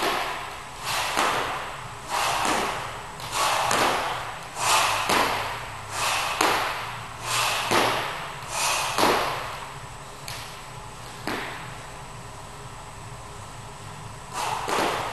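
Hard, rhythmic exercise breathing with feet landing on a wooden floor during jumping squats: a pair of loud breaths and landings about every 1.3 seconds for the first nine seconds, then it eases off, with one more burst near the end.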